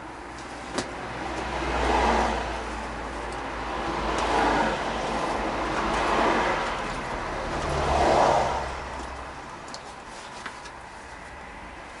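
Front forks of a 1981 Honda CX500 Custom pumped up and down by hand on the handlebars, four strokes about two seconds apart, each a swelling rush of noise; a single sharp click about a second in.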